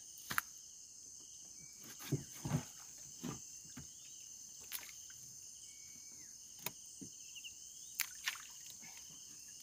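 Steady high-pitched drone of insects in the background, with scattered short clicks and knocks and a couple of brief chirps.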